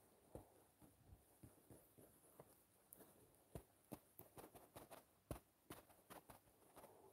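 Near silence broken by faint, irregular light taps, a couple a second: brush strokes being dabbed onto a phone's touchscreen.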